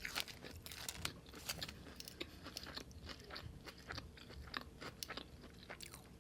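A person chewing food close to the microphone: an irregular run of small crunches and wet mouth clicks.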